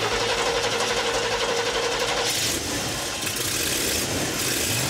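Sports car engine running, its note changing and growing harsher about two seconds in.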